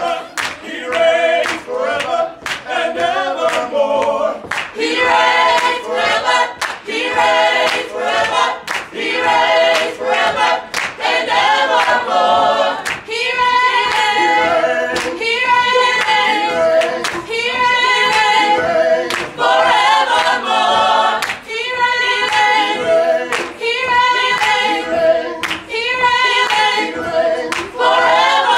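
Small mixed a cappella gospel vocal group singing a praise song in harmony, with steady hand claps on the beat.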